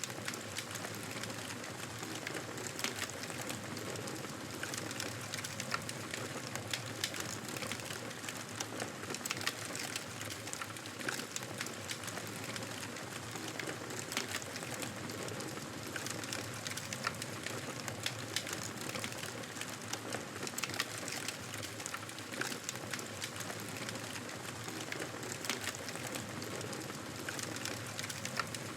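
Wood fire crackling in a fireplace: a steady hiss with frequent small, irregular pops and snaps.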